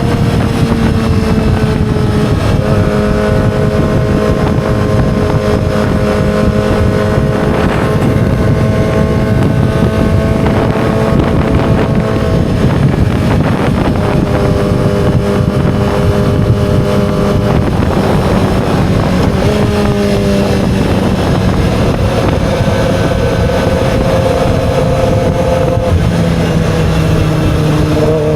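2007 Yamaha R6's 600 cc inline-four engine running steadily at mid-to-high revs, with wind rush on the microphone. Its pitch holds nearly level, wavers briefly past the middle, and drops a step near the end.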